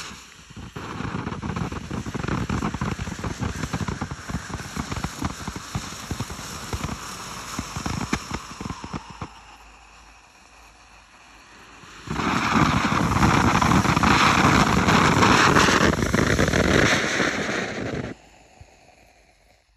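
Vulcan "Jumping Jelly Beans" F2 fountain burning: a dense spray of crackling and hissing that dies down around nine to ten seconds in. A louder, brighter stretch of crackling hiss follows from about twelve seconds as the next tube takes over, and it cuts off about eighteen seconds in.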